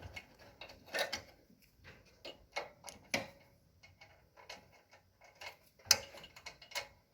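Small metal clicks and taps, irregular and a few a second, with louder knocks about a second in, around three seconds and near six seconds: a small brass fitting on a propane water heater being handled and threaded in by hand.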